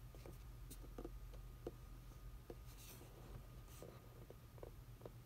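Faint scratches and small clicks of fingers handling a cardboard action-figure box, with a brief rustle about three seconds in, over a low steady hum.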